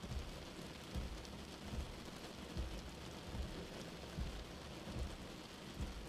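Steady rain on a car windshield with the wipers going, a low thump at each wiper stroke repeating evenly about every 0.8 seconds.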